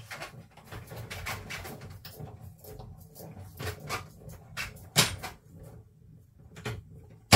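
Cardstock being cut out and handled: irregular small snips, clicks and paper rustling, with a sharper click about five seconds in and another at the end.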